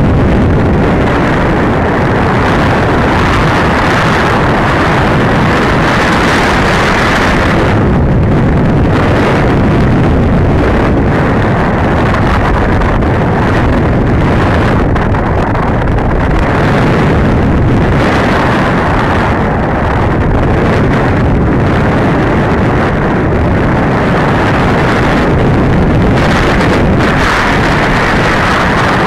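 Loud rushing wind noise from air streaming past the microphone of a camera mounted on an RC glider in flight, swelling and easing as it goes.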